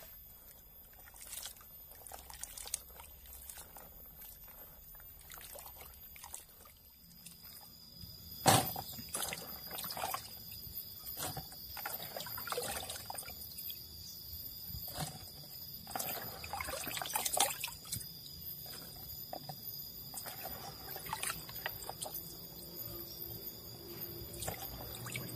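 Hands washing sliced jengkol (dogfruit) in a plastic basin of water: irregular sloshing, splashing and dripping as the slices are rubbed and stirred, with the loudest splash about eight seconds in.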